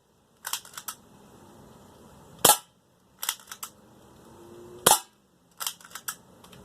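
Spring-powered 1911-style BB pistol fired twice, about two and a half seconds apart, each a sharp crack. Each shot is followed under a second later by a quick run of lighter clicks.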